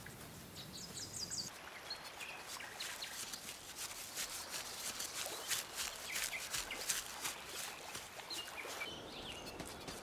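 Light, quick footsteps of the snowman Olaf, about three a second, pattering over grass and fallen leaves. Short bird chirps come now and then: near the start, about two seconds in and near the end.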